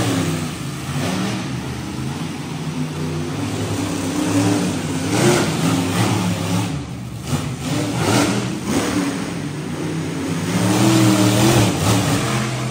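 Monster truck engines revving hard, their pitch rising and falling again and again as the trucks race and jump. There are a few short noisy bursts around the middle.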